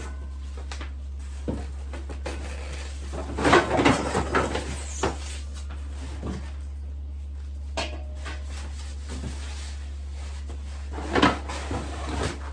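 Desk parts and packaging being handled during unboxing: scattered knocks, clatters and rustles, busiest a few seconds in and again near the end, over a steady low hum.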